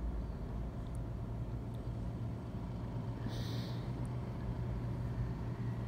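Distant city road traffic: a steady low rumble and hum, with a brief hiss about three and a half seconds in.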